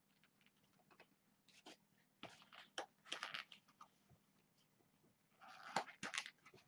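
Faint rustling and crinkling of posterboard handled by hand, in short scattered bursts, the loudest cluster near the end.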